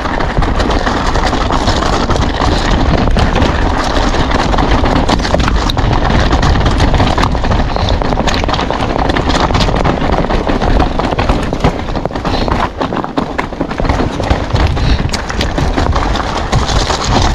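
Mountain bike riding fast down a rocky trail: tyres and frame clattering over stones in rapid, irregular knocks, over a heavy rumble of wind on the microphone.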